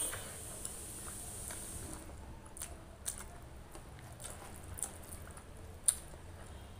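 Eating rice and curry by hand: chewing a mouthful, with soft squishing of fingers mixing rice on the plate and a few short sharp clicks, the loudest about six seconds in.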